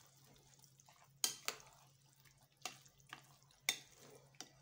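A spoon stirring a thick mix of vegetables and cream in a glass bowl, clinking sharply against the glass about six times, with a soft wet squelch between the clinks.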